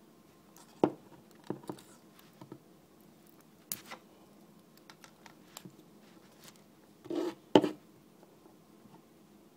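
Scattered clicks, taps and short scrapes of small hard parts being handled, as an eGo-type e-cigarette battery is taken apart. The sharpest click comes about a second in, and a louder cluster of scraping and clicking comes near the end.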